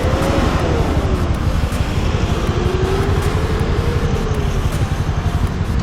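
Japanese police patrol car siren wailing, its pitch rising and falling slowly twice, over a loud low rumble.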